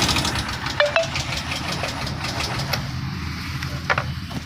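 Honda Shine BS6's single-cylinder engine running at idle with a mechanical knock from the top end, which the mechanic traces to a broken rocker-arm bolt. A few sharp clicks are heard about a second in and again near the end.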